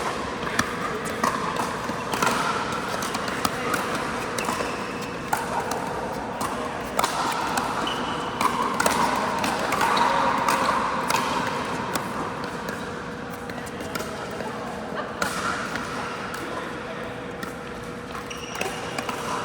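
Pickleball paddles striking the hollow plastic ball and the ball bouncing on the court: sharp pops at irregular intervals over a steady background of voices and a faint steady hum.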